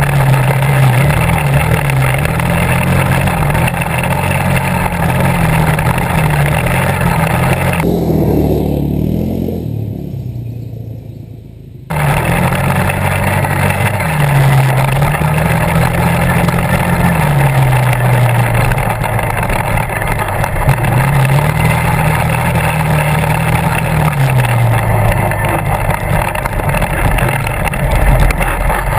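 Quad (ATV) engine running under way, its pitch rising and falling as the throttle is opened and eased off. About eight seconds in the sound dulls and fades, then cuts back in abruptly at full level a few seconds later.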